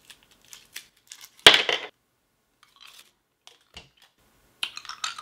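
Small objects handled by hand: scattered light clicks and rustles, with one louder short rasp about a second and a half in and a little cluster of clicks near the end.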